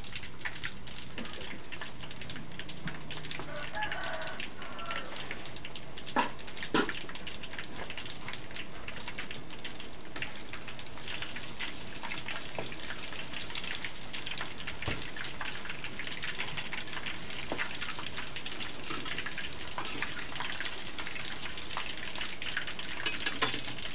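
Tempeh frying in hot oil in a wok, a steady crackling sizzle. Two short knocks sound about six seconds in.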